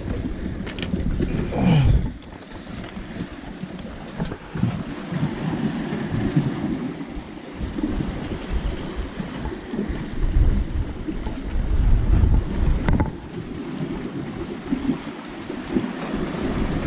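Wind buffeting the microphone in uneven gusts, over sea surf washing against the rocky shore, with a few short knocks.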